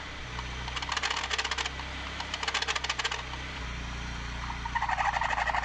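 The engine of a 1990 BMW E30 318is, a four-cylinder, running at idle while a loose accessory drive belt squeaks in three bouts of rapid chirping. The belt is slipping on its pulleys because it is too loose, which means the belt or its tensioner needs replacing.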